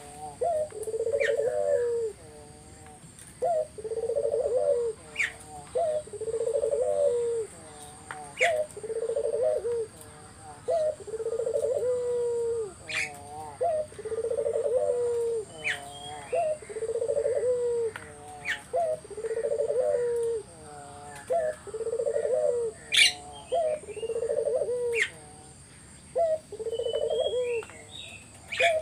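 Puter dove (domestic ringneck dove) cooing persistently, a long unbroken run of low coos roughly one each second. Thin high chirps from small birds come in now and then.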